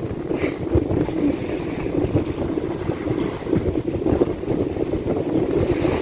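Wind buffeting the microphone on the shore: a steady low rumble.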